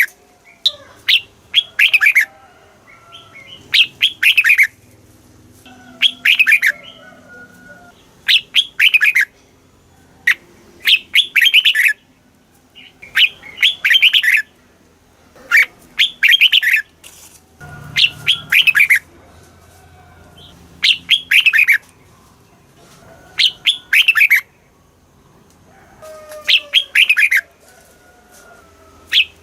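Red-whiskered bulbul singing: a short phrase of quick, falling whistled notes, repeated about every two and a half seconds.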